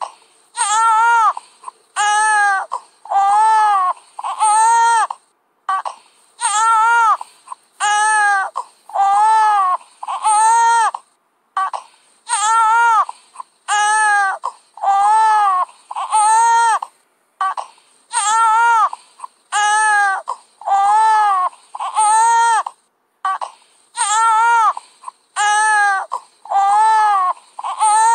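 Baby crying hard in short, regular wails, about one cry a second, each rising and then falling in pitch.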